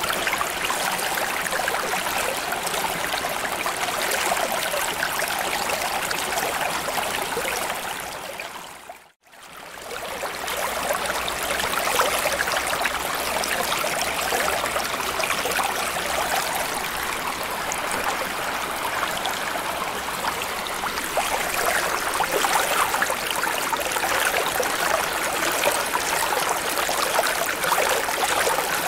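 Water ambience of steady flowing, trickling water noise. About nine seconds in it fades briefly to near silence, then swells back up within a second.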